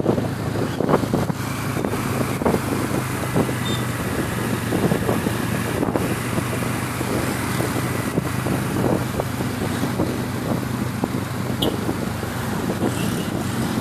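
Motor scooter riding along a wet road: its engine keeps up a steady low hum under wind buffeting the microphone and road noise.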